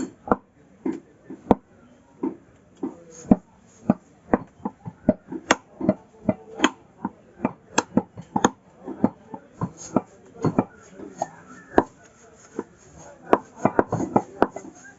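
Butcher's knife chopping beef on a chopping block: repeated sharp chops at an irregular pace of about two or three strokes a second.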